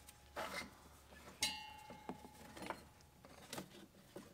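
Handling noises of a zero-turn mower's drive belt being worked off its pulleys: soft rubs and knocks, with one sharp metallic clink about a second and a half in that rings on briefly.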